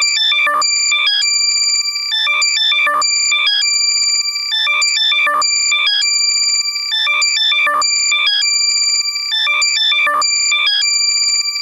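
Loud, compressed electronic alert tone for locating lost AirPods, played in the left channel only. Quick runs of high, stepped beeps alternate with held high tones, and the pattern repeats every couple of seconds.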